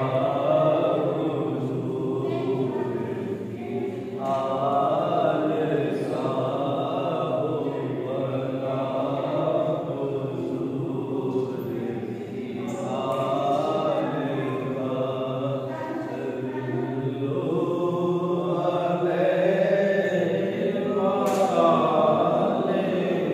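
A man chanting a devotional kalam in long, drawn-out phrases.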